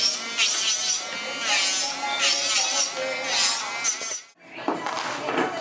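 Voices talking over the buzz of an electric nail drill filing nails, then an abrupt cut to background music about four seconds in.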